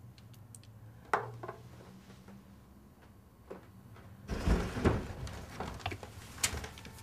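Quiet room with a low hum and movement sounds: a sharp knock about a second in and a louder rustling thump midway. A closet door is then opened, with a sharp click near the end.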